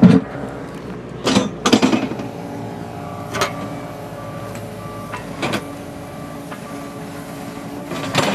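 An engine running steadily, probably on a piece of digging equipment working a trench, with a handful of sharp knocks and clanks scattered through it.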